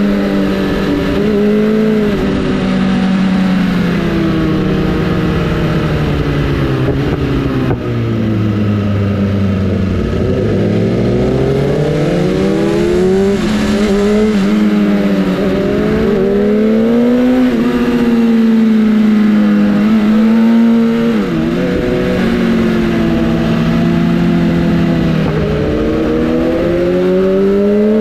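Sportbike inline-four engine running under riding load, its pitch climbing with the throttle and dropping sharply at each gear change. About eight to ten seconds in the revs sink low, then build again.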